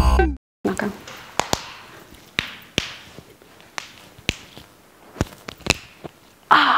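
Electronic outro music cuts off abruptly, then joints crack: about ten sharp, separate pops spread over several seconds as fingers are interlocked and pressed to crack the knuckles.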